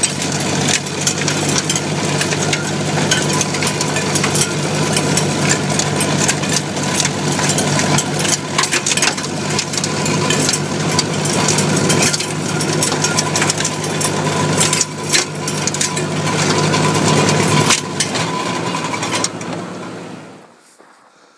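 1955 Ford 640 tractor's four-cylinder engine running steadily under load, driving a PTO snowblower that throws powdery snow, with frequent sharp ticks and rattles over the engine's steady drone. Near the end the sound fades away.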